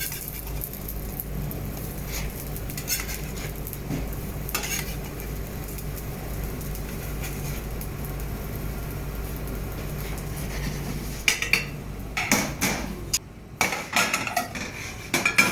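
Pancakes frying in oiled pans on low heat, sizzling steadily over a low hum, with an occasional click. In the last few seconds, utensils clatter and knock against the pans and dishes in quick, sharp strikes.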